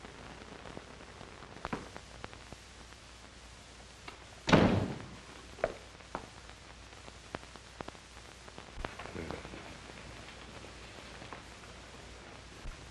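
A single heavy thud about four and a half seconds in, with scattered light clicks and knocks before and after it. Underneath runs the steady hiss of a 1930s film soundtrack.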